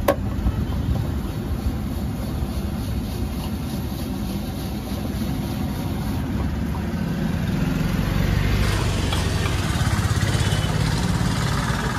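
Steady low rumble of street traffic and idling vehicle engines, growing somewhat louder in the second half.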